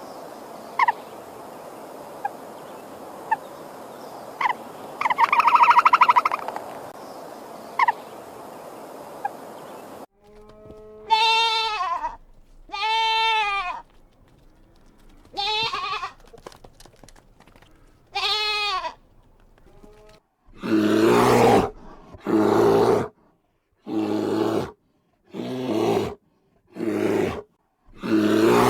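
A soft hiss dotted with short chirps, then four quavering bleats from livestock, each about a second long. From about two-thirds of the way in comes a run of loud, harsh calls, roughly one a second.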